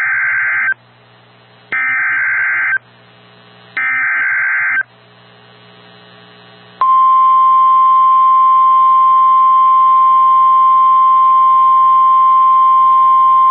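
Emergency Alert System activation on NOAA Weather Radio. First comes the digital SAME header, three short screechy data bursts of about a second each with a second's pause between them. About seven seconds in, the steady 1050 Hz weather-radio warning alarm tone starts and holds, signalling that a warning is about to be broadcast.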